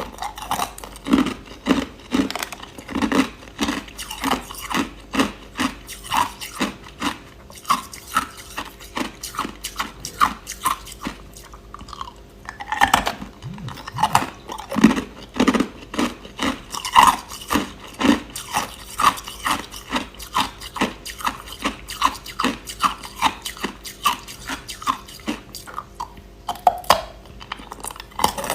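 Clear, hard crushed ice being chewed: a steady run of sharp crunches about two a second, with a louder crunch about halfway through.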